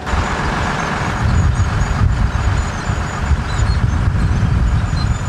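Engine of a WWII armoured vehicle running as it drives along, a steady low engine sound that starts abruptly and carries on throughout.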